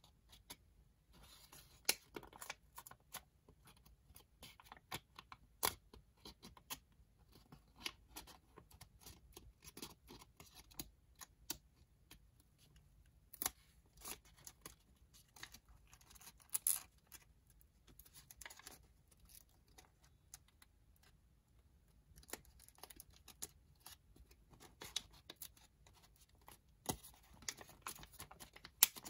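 Folded origami paper crinkling and crackling as fingers pinch and shape the model, in irregular small crackles with short lulls about twelve and twenty seconds in.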